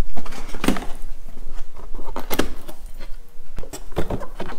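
Cardboard box and its inner flaps being opened by hand: a handful of short cardboard taps and rustles, the sharpest about halfway through.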